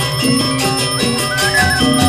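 Balinese gamelan playing: bronze metallophones and gongs struck in a quick, even rhythm, their bright tones ringing over a low pulsing beat.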